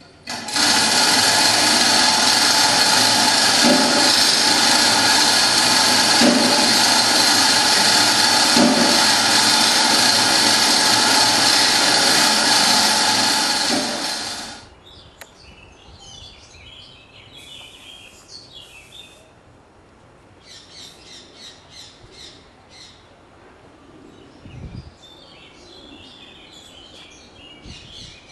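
A workshop machine motor runs steadily with a loud whine and hiss for about fourteen seconds, then cuts off suddenly. Birds chirp intermittently afterwards.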